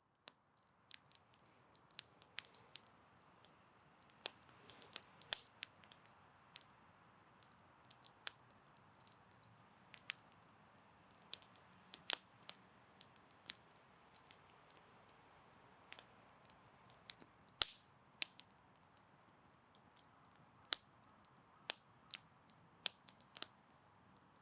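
Wood campfire crackling: irregular sharp pops and snaps from burning logs over a faint hiss of flame.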